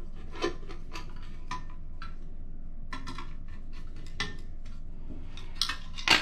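Small metallic clicks and scrapes of a screwdriver driving screws into a cast aluminum blast gate, with a louder clatter near the end as the aluminum gate is picked up and handled.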